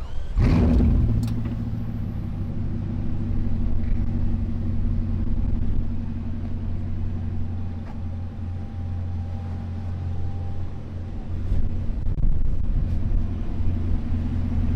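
Bugatti W16 engine firing up about half a second in with a brief rev flare, then idling steadily with a low, deep rumble.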